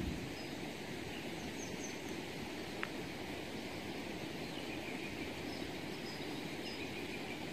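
Steady outdoor background noise, mostly a low rumble, with a few faint high chirps and one sharp click about three seconds in.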